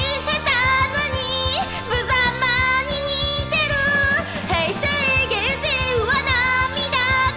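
A woman singing a fast pop song over its backing track.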